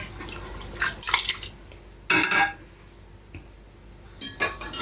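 Kitchen utensils and a pot or bowl knocking and scraping in three short clattering bursts as food is handled at the worktop.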